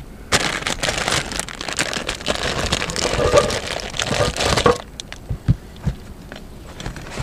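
Plastic packaging crinkling and rustling as hands rummage in a plastic storage drawer for about four seconds, then a few light knocks and taps as paper plates are handled.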